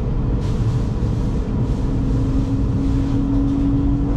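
Cabin noise inside a Jakarta–Bandung high-speed train running at speed: a steady low rumble with a hum that rises slightly in pitch from about two seconds in.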